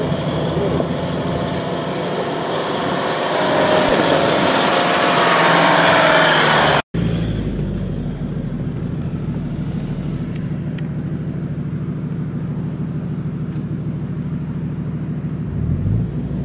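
Off-road 4x4 engines running as the vehicles climb a rutted dirt track. The sound cuts off abruptly about seven seconds in and comes back as a steady low engine drone, which rises briefly near the end as an engine is revved.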